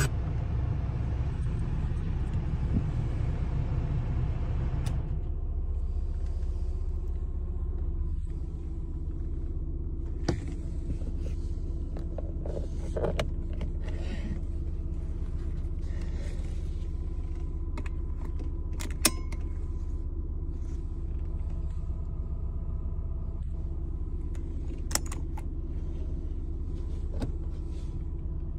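Nissan 240SX's 2.4-litre four-cylinder engine idling steadily, heard from inside the cabin. A hiss over the idle stops about five seconds in, and a few sharp clicks of interior controls and levers being worked come and go.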